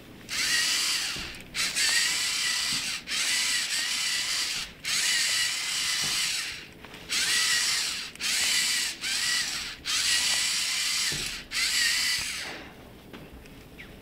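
LEGO Mindstorms robot's geared electric motors whining as it drives over carpet, in about ten runs of one to two seconds separated by brief stops, going quiet near the end.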